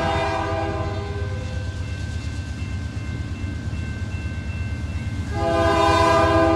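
Diesel locomotive horn sounding for a grade crossing: one blast trailing off about a second and a half in, then a louder second blast starting near the end. Underneath is the steady low rumble of the approaching locomotives' diesel engines.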